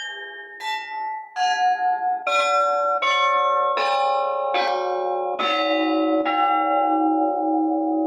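Church bells rung one after another, about nine strikes roughly a second apart, each at a different pitch. The tones overlap and ring on after the last strike near the end.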